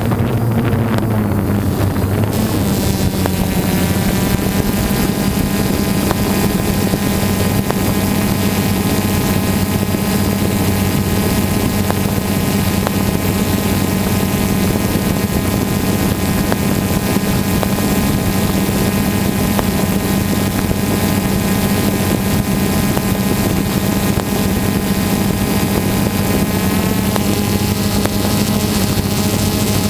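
Multirotor drone's motors and propellers humming steadily, the pitch shifting briefly a few seconds in and again near the end.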